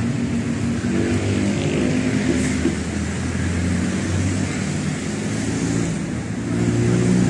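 Motor vehicle engine running steadily, its low hum shifting slightly in pitch and growing a little louder near the end, over a background of traffic noise.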